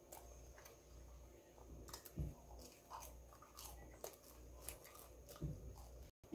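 A person chewing a mouthful of pizza crust: faint, irregular wet mouth clicks and smacks over a low steady hum.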